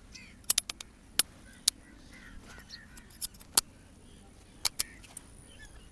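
Barber's scissors snipping hair in quick, irregular cuts, some in rapid pairs and short bursts.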